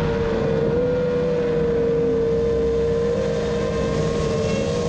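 Six-inch FPV quadcopter's T-Motor 2323 brushless motors and propellers running at a steady cruising throttle, heard from the onboard camera: one steady, high buzzing whine over a wash of rushing air, its pitch wavering only slightly.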